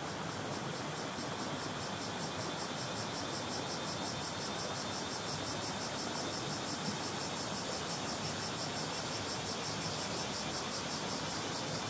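Small shallow stream running steadily over stones, a little stronger than a trickle, with a chorus of cicadas buzzing in a rapid, even pulsing high above it.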